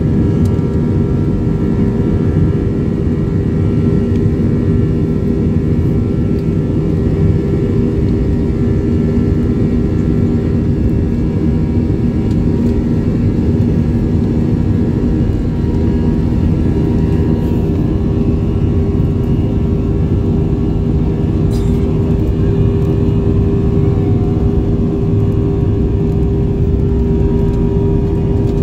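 Airliner cabin noise while taxiing: the jet engines run at low power as a steady drone with several held tones, with no rise in pitch.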